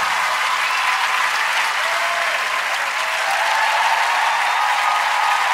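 Large studio audience applauding steadily, with voices cheering over the clapping.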